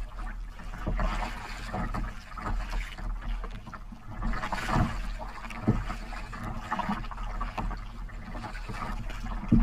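Choppy lake water slapping and splashing against a kayak's hull in uneven surges, with a steady low wind rumble on the microphone. A sharp knock comes right at the end.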